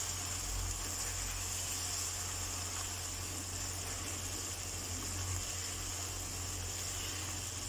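Chicken jalfrezi sizzling steadily in a nonstick wok while it is stirred with a silicone spatula, with a steady low hum underneath.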